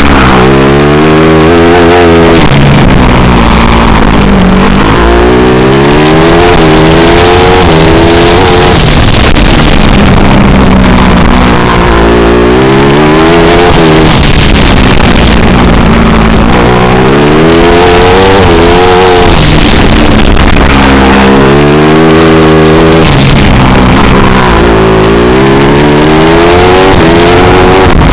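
250 cc four-stroke kart engine at full racing effort, loud and close: revs climb on each straight and fall back for each corner, over and over.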